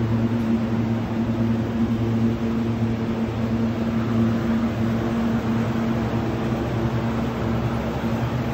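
Steady hum of supermarket refrigerated display cabinets, a constant machine drone with several steady tones.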